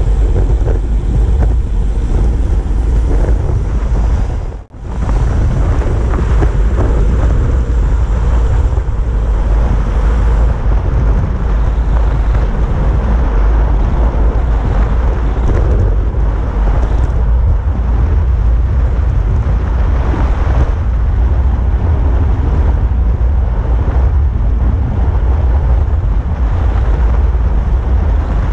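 Wind buffeting the microphone of a bike-mounted camera on a road bike descending at about 45 km/h: a loud, steady low rumble. The sound briefly drops out about five seconds in.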